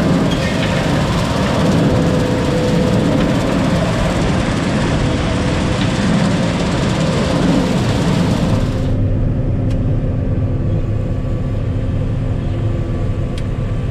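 Large farm machine's diesel engine running with a dense rushing machinery noise. Partway through, the high rushing drops away, leaving a steadier low hum.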